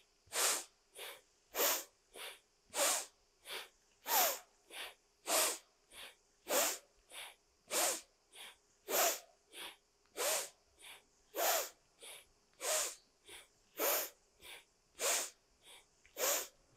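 A woman breathing hard and rhythmically through the nose in Kundalini yoga breathwork: short, hissing breaths at an even pace, a stronger one alternating with a softer one, about three every two seconds, each breath marking a movement of the arms.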